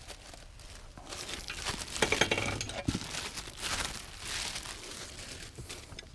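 Crinkling and rustling as gloved hands handle shop rags and parts at a tractor backhoe's hydraulic valve bank, with a few light clicks and a dull knock about three seconds in.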